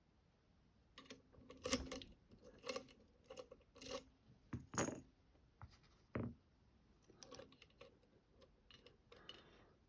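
Small metal clicks and taps of lock-picking tools and a lock being handled, a string of sharp ones over several seconds, then a few softer ones near the end.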